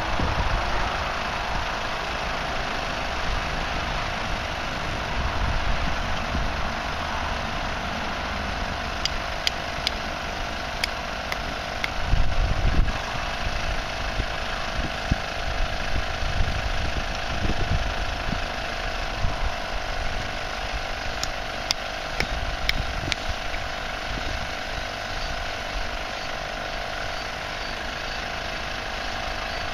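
Twin 12V electric air compressors running steadily, inflating the tent's air beams, with a constant hum. Wind rumbles on the microphone now and then, and a few light clicks sound in the middle.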